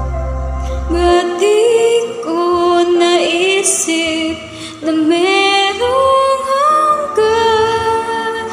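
A woman singing long held notes that climb step by step over a soft karaoke backing track. The deep bass of the track drops out about a second in.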